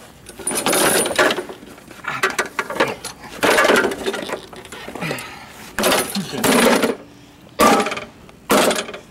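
A push lawnmower being knocked about: its metal deck clanging and rattling as it is tipped and dragged over, then struck with a hand tool near the end, in a string of separate loud bangs.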